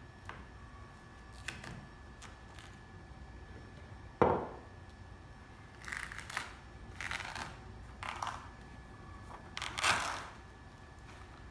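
Hand work stripping the slit outer jacket off a transmission cable: a sharp knock about four seconds in, then several short scraping, tearing rustles as the jacketing is pulled away.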